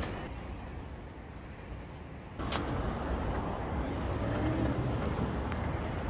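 Construction hoist: a sharp clunk about two and a half seconds in, then a steady, louder low mechanical rumble as the cage runs.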